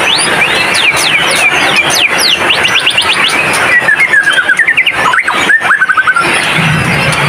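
White-rumped shama singing: a fast run of sweeping whistled notes, then a quick string of repeated short notes about four seconds in, over a steady background din.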